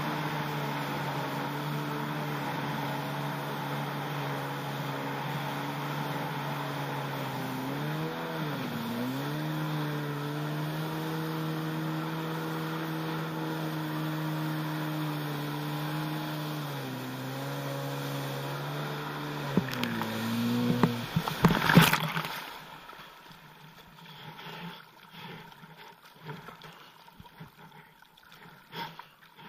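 Yamaha SuperJet stand-up jet ski's two-stroke engine running steadily at speed, its pitch dipping and recovering a few times and dropping lower near the end. Then comes a loud splash as the rider goes into the water, the engine cuts out, and water sloshes and laps.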